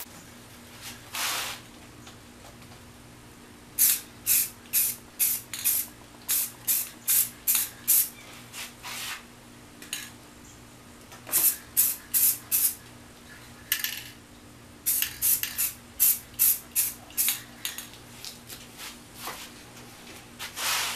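Aerosol spray-paint can hissing in quick short bursts, several a second in runs, with a longer spray about a second in and another near the end.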